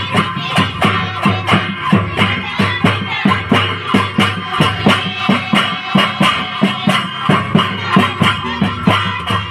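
Live Santali folk music: hand drums keep a fast, steady beat of several strokes a second, with a melody running over them.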